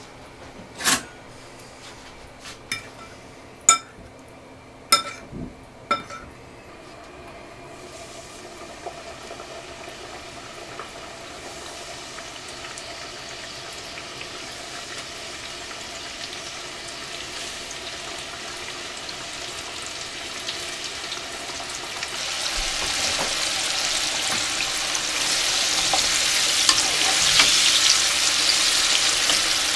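Battered fish pieces deep-frying in hot peanut oil in a pot: a sizzling hiss that builds steadily and is loudest near the end as more pieces go in and are stirred. In the first six seconds there are a few sharp clinks.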